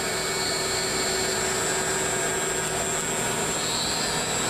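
HSD router spindle on a 2002 Motion-master SB-55X CNC router running at high speed and cutting a curved part: a steady high whine over a constant rushing hiss.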